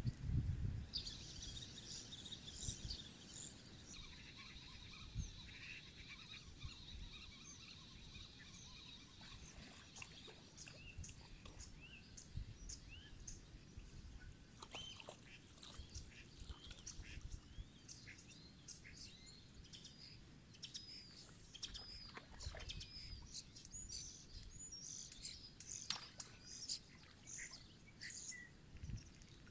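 Small birds chirping and twittering throughout, many short high calls overlapping, with a brief low rumble at the very start.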